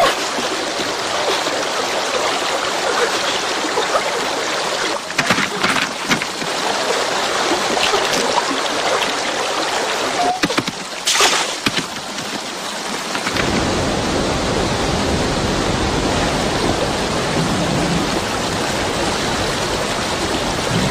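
Rushing river water running over rocks, a steady noise, with a few short sharp sounds about five and eleven seconds in. About two-thirds of the way through, the rush turns deeper and fuller.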